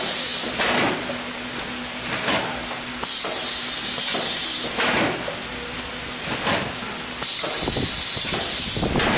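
Pneumatic pouch packing machine for paste and sauce running: a loud hiss of compressed air lasting under two seconds comes back about every four seconds, with clicks and knocks from the mechanism in between.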